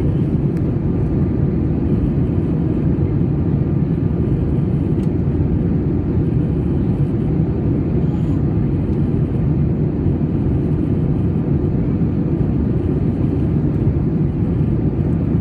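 Airbus A320 cabin noise: a steady, even rumble of jet engines and airflow, strongest in the low range, heard from inside the cabin while the aircraft flies.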